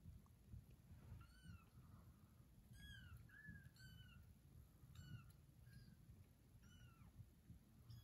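Small kittens mewing: about seven short, faint, high-pitched mews in a row, each rising then falling in pitch.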